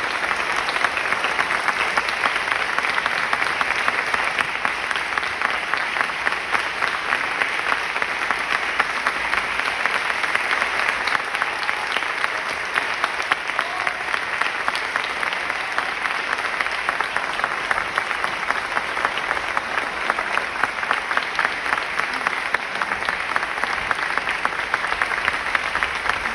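Theater audience applauding: dense, sustained clapping from a large crowd, steady throughout.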